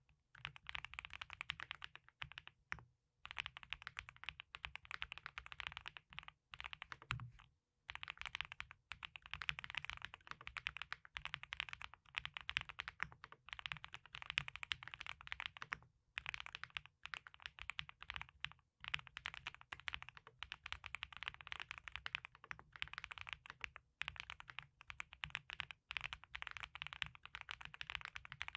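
Typing on a wooden-cased Null64 mechanical keyboard with F1 switches and coffee bean keycaps: dense runs of key clacks, broken by short pauses every few seconds.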